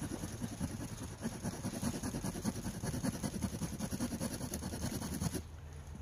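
Saw blade of a Gerber Suspension multitool cutting into a wooden log with rapid back-and-forth strokes, stopping near the end.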